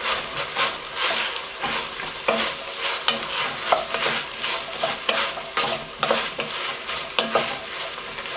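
Diced carrots and celery sautéing in hot oil, sizzling steadily while being stirred around the pot, with a stirring stroke about twice a second.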